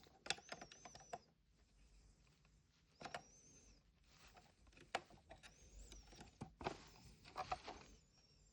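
Small plastic toy pieces handled and set down: scattered light clicks and taps, with a few faint high squeaks among them.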